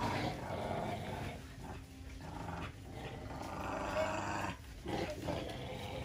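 Several dogs growling and snarling at one another as they scuffle, in a few rough bouts of a second or two each with short breaks between.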